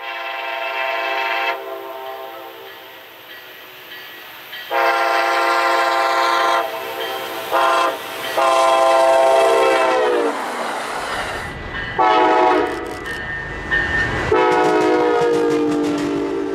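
Siemens Charger locomotive's Nathan K5LA air horn sounding long, long, short, long, the grade-crossing signal, as the train approaches; the chord's pitch drops as the locomotive passes. Then the rumble and rail clatter of the passing train, with more horn blasts at a lower pitch.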